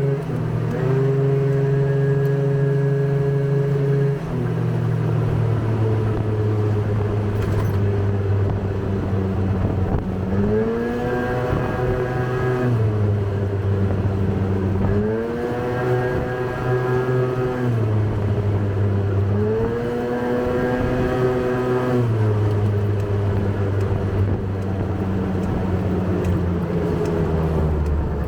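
Small single-cylinder motorbike engine running, rebuilt after a seized piston, which has low compression and an odd noise. It runs at a steady speed, then is revved up three times, each time holding the higher pitch for about two seconds before dropping back.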